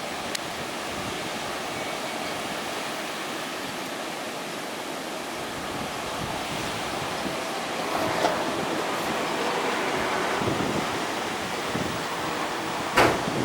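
Storm surf breaking on a sandy shore in strong wind: a steady rushing wash that swells about two-thirds of the way in. Wind buffets the microphone, with one sharp gust thump near the end.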